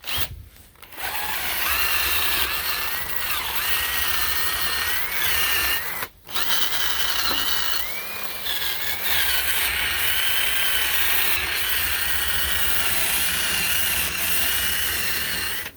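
Handheld electric power tool running with a bit, cleaning out a damaged spot in a wooden screen door. Its motor whine wavers and dips as the bit bites into the wood. It starts about a second in, stops briefly about six seconds in, then runs steadily again.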